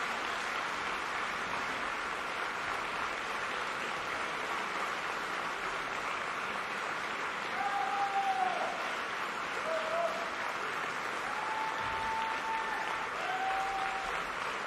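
Audience applauding steadily, with a few brief shouted calls rising over the clapping from about halfway through.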